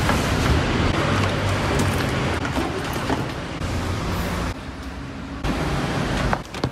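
Car and road traffic noise, a dense rushing sound that changes level abruptly a few times.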